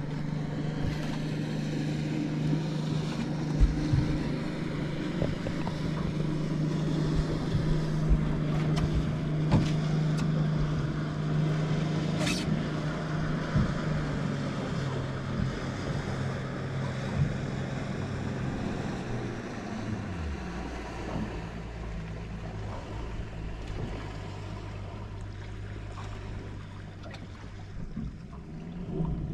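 Boat's outboard motor running steadily at low speed, its pitch dropping as it is throttled back about two-thirds of the way through.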